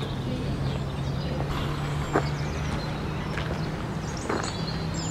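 An engine running steadily at a constant low pitch, with a few light clicks over it.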